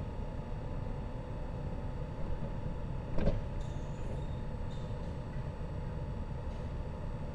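Alstom Coradia Nordic (SL X60) electric commuter train standing at the platform with a steady electrical and ventilation hum. About three seconds in, its sliding passenger door closes with a sharp thud, followed by faint high-pitched sounds over the next second or so.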